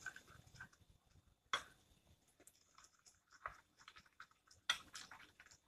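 Metal spoon stirring a thick paste in a glass bowl: a few faint, sharp clicks and scrapes of the spoon against the glass, with quiet in between.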